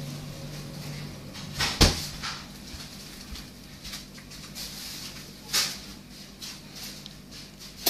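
A child eating noodles with his fingers from a stainless steel bowl. There is a sharp knock about two seconds in, then softer clicks and a slurp as a noodle strand is sucked in near six seconds.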